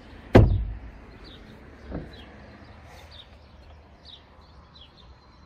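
A heavy thump about a third of a second in and a lighter one around two seconds in, with a bird chirping over and over in short, falling high notes.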